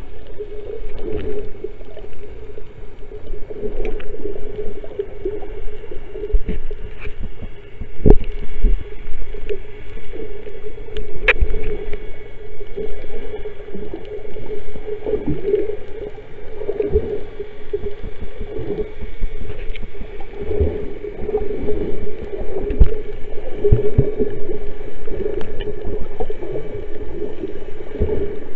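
Muffled underwater sound picked up by a submerged camera: water moving and gurgling, a steady hum whose loudness swells and falls, and scattered clicks.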